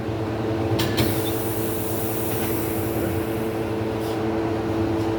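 Pneumatic tyre changer running with a steady mechanical hum. About a second in it gives a sharp clunk, followed by a hiss of air lasting a couple of seconds, with a few light ticks later.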